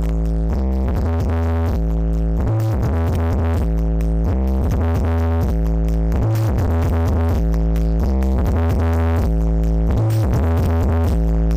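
Electronic dance music with a drum machine and heavy, sustained bass notes, played loudly through the Blizzard Audio sound system.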